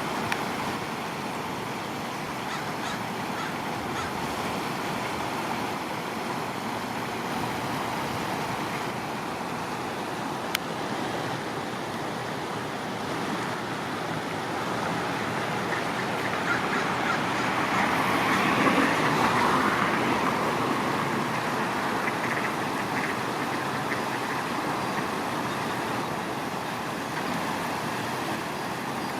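Ducks quacking over a steady rush of distant road traffic, the sound swelling for a few seconds past the middle, with one sharp click.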